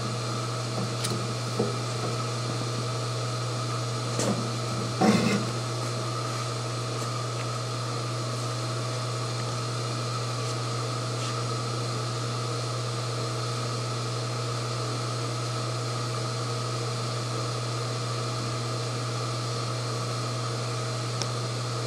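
Steady low electrical hum with fan-like noise from the running induction melting system and its power supply. A few short metal clinks come between about one and five seconds in, the loudest just after five seconds, as tongs lift the crucible out of the furnace.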